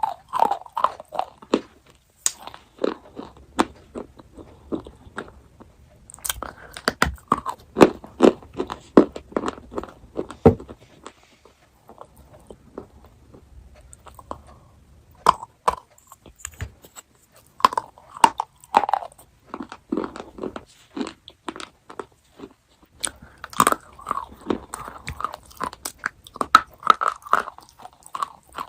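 Close-miked chocolate eating: crisp bites and crunchy chewing in bouts of several seconds, with short pauses between.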